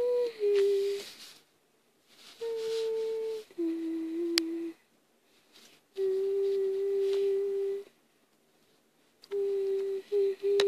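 A person humming long, steady held notes in about four slow phrases with pauses between them. Most phrases step down to a lower note partway through. A single sharp click comes in the middle.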